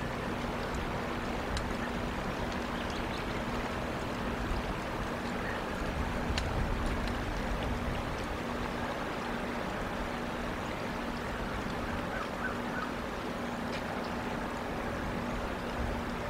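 Steady outdoor background noise from a pond-side wildlife camera's microphone: a low rumble and hiss with a faint steady hum underneath, and a few faint ticks.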